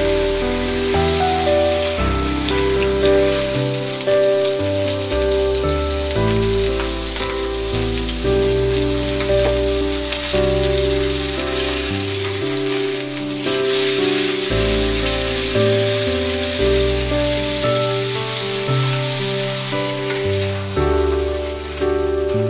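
Beef steak sizzling in hot oil in a stainless steel frying pan, a steady hiss that fades near the end, under gentle background music.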